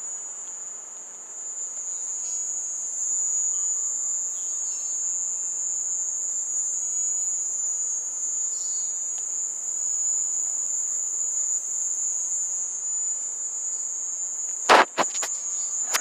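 Mole cricket buzzing loud: one steady, high-pitched trill without a break. Two sharp knocks near the end.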